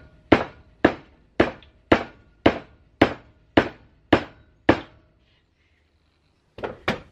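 A wooden mallet strikes a chisel driven into a block of wood held in a vise. It gives a steady run of nine knocks, about two a second, then a pause and two more quick knocks near the end. The block is being split along the grain and resists splitting.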